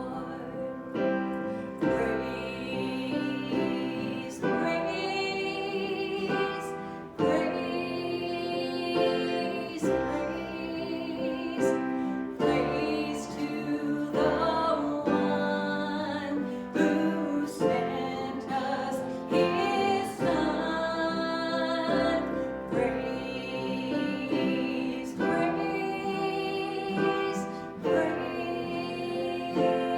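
Congregational worship song: voices singing over piano accompaniment.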